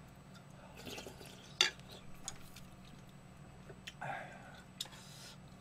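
Wooden spoon and chopsticks tapping and clicking against bowls while eating ramyeon, a few scattered light taps with one sharper clack about a second and a half in.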